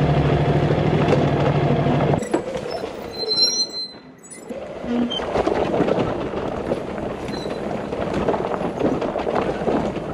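A held musical chord cuts off about two seconds in. Then a Ducati Multistrada 1260 is ridden over a rough dirt road, its engine running under the jolts and rattles of the bike on the ruts.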